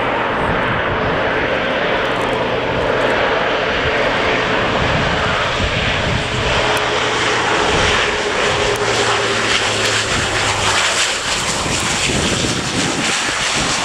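Leonardo C-27J Spartan's two Rolls-Royce AE 2100 turboprop engines and propellers running loud and steady, with a low propeller hum under the rush, as the plane comes down on a steep landing approach and passes low over the runway.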